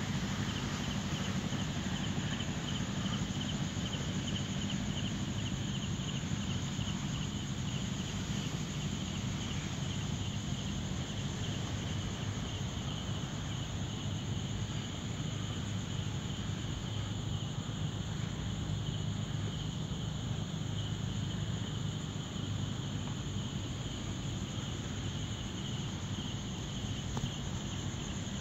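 Crickets chirping in a steady, rapid pulse, over a constant low rumble.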